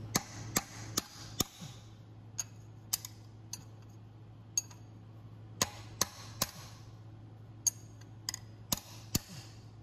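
Small hammer tapping a new crankshaft rear main seal into its bore, seating it evenly around the crank. There are about sixteen light, sharp taps at uneven intervals, some in quick runs of two or three.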